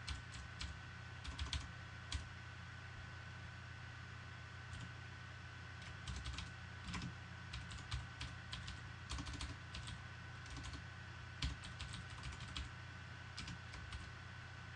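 Computer keyboard typing: bursts of quick keystrokes, a pause of about two seconds after the first burst, then a longer run of keystrokes, over a faint steady hum and a thin high whine.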